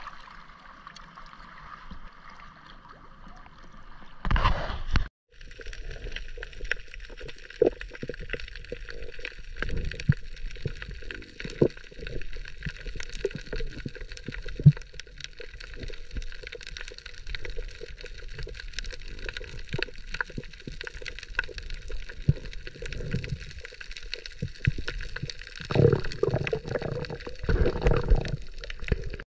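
Underwater sound picked up by a camera on a dive: a steady hiss with frequent small clicks and crackles. A burst of splashing comes about four seconds in, just before the sound cuts out briefly, and there is more louder splashing and bubbling near the end.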